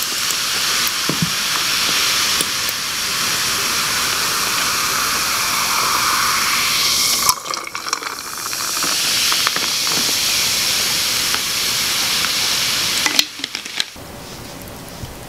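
A carbonated drink is poured from a plastic bottle into a glass of ice, fizzing and hissing as it fills, with a few clinks of ice. The pour breaks off briefly about seven seconds in, then runs again until near the end.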